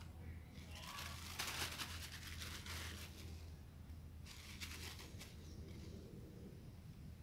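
Faint crinkling and rustling from hands handling small gear, in two spells, the first about a second in and the second near the middle, over a steady low hum.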